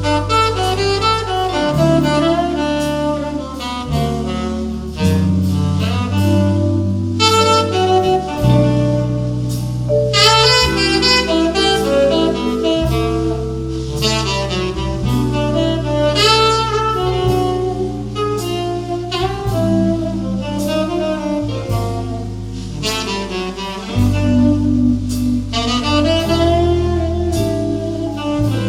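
Tenor saxophone playing an instrumental solo over a bass line: a jazz recording played back through ATC SCM 11 bookshelf speakers and picked up by a microphone in the room.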